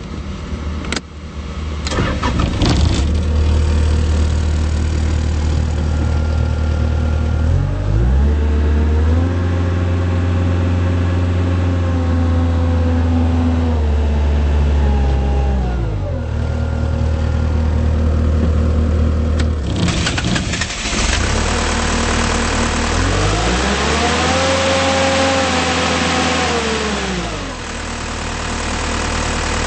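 Terex PT80 compact track loader's diesel engine starting, settling to a steady idle, then revved up and held for several seconds before dropping back to idle. About twenty seconds in, a louder rushing noise joins, and the engine revs up and back down once more.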